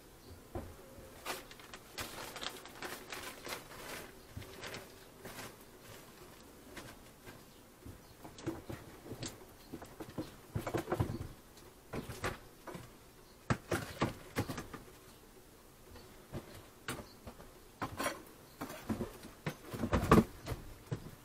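Irregular clicks, knocks and scrapes of wooden beehive boxes and frames being handled. The knocks come more thickly in the second half, and the loudest falls near the end.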